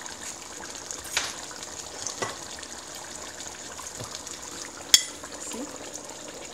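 Thick adobo sauce simmering in a pan with a steady low sizzle, with a few faint knocks of utensils. About five seconds in a sharp clink, a fork striking a plate, stands out as the loudest sound.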